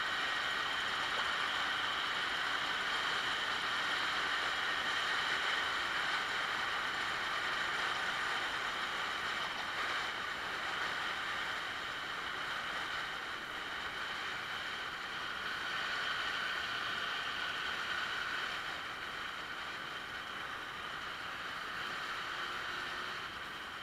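Riding noise from a Yamaha Axis 90 scooter at cruising speed: a steady rush of wind and road noise with the small two-stroke engine running underneath. It gets a little quieter about halfway through. The engine is pulling normally again now that the clogged air-cleaner box intake has been cleared.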